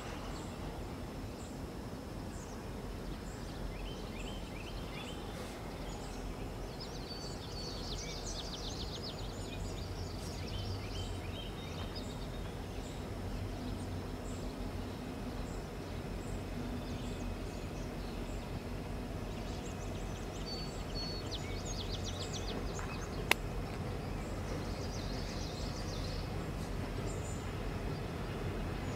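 Low, steady rumble of a distant diesel freight locomotive, growing slowly louder as the train approaches, with birds chirping several times over it. A single sharp click about 23 seconds in.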